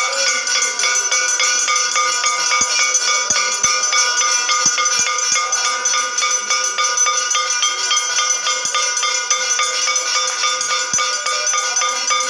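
Metal temple bells ringing rapidly and without pause, several pitches sounding together in a dense, steady clangour: the bell-ringing that accompanies the aarti lamp offering.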